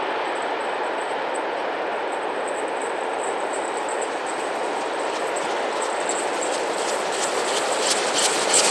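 Borsig 2-8-2 Mikado steam locomotive working a freight train as it approaches. Its steady working sound grows louder near the end as the train nears.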